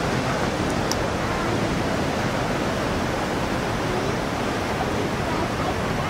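Steady rush of ocean surf breaking on the beach.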